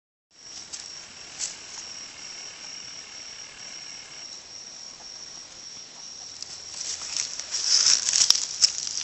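A steady high-pitched drone of crickets, with close rustling and crackling that grows louder over the last couple of seconds.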